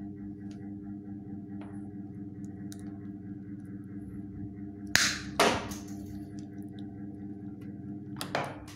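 Sharp handling noises from the crimping work, two quick snaps or swishes about five seconds in and another near the end, over a steady low background hum.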